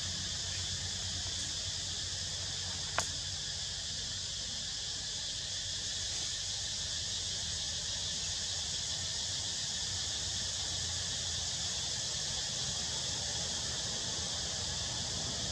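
Steady high-pitched insect chorus with a low rumble underneath, and one sharp click about three seconds in.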